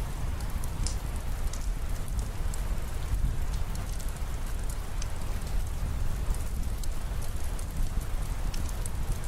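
Steady rain falling, with scattered sharp drop ticks over a deep, constant low rumble.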